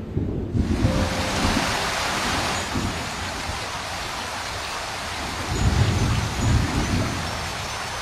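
Steady rain hissing, starting abruptly about half a second in, with a low rumble of thunder rolling past a little after the middle.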